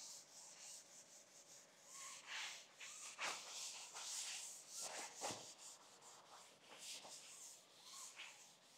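A rag wiping acetone over the saw's table top, faint irregular rubbing strokes, a few louder swipes in the middle.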